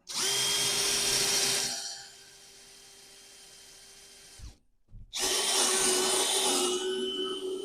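Power drill boring into wood in two loud spells, the first about a second and a half long and the second about four seconds later, with the motor running more lightly between them and stopping briefly just before the second cut.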